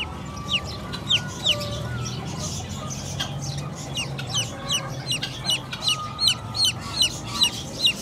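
A newly hatched chicken chick peeping: short, high calls that fall in pitch, a few at first, then about three a second from the middle on.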